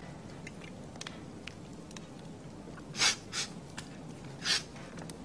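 A man sniffling while crying: three short, sharp sniffs in the second half, over a low steady background hum.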